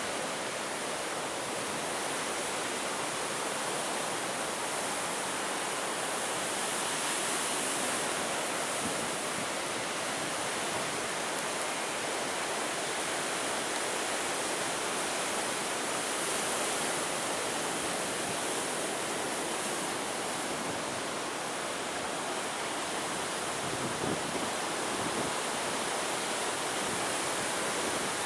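Steady rushing noise of sea surf and wind. Near the end a faint low rumble comes in as a diesel locomotive approaches.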